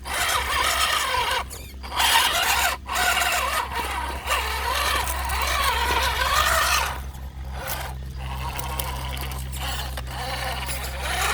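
Brushless motor and drivetrain of an MN82 Land Cruiser RC crawler whining. The pitch rises and falls with the throttle as it crawls over rocks, and it cuts out briefly a few times.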